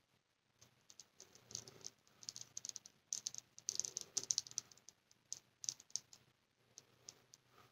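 Faint, irregular clicking and rattling as gloved hands tilt a resin-covered wooden cradle board and set it back down level, busiest a few seconds in.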